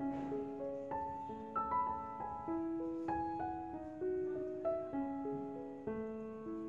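Background piano music: a melody of single notes and chords, a new note struck every third to half second.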